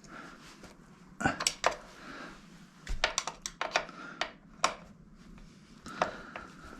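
Sharp metallic clicks and clinks of hand tools being handled and set against metal, coming in irregular clusters.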